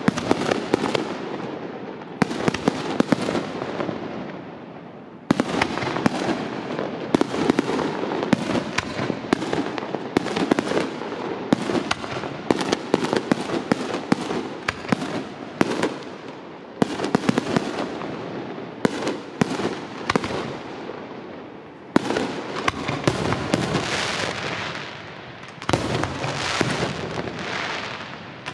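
Aerial fireworks display: a dense, continuous barrage of bangs and crackling. It thins out about five seconds in and again around twenty-one seconds, each time starting up again with a sudden volley.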